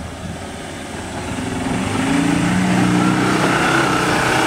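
Ford Endeavour's diesel engine revving under load as the SUV climbs out of a deep dirt rut, getting louder over the first two seconds and then holding steady with a slowly rising pitch.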